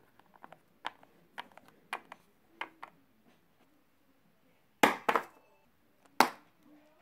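A small plastic toy figurine is tapped along a hard sill in a series of light clicks. These are followed by a loud double knock about five seconds in and another loud knock just after six seconds, as the figurine and camera are handled.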